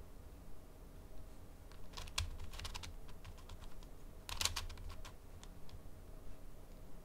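Plastic 5x5 speed cube turned slowly by hand, its layers clicking and clacking as they rotate. There is a cluster of clicks about two seconds in and a louder run of clacks around four and a half seconds, with sparse single clicks between.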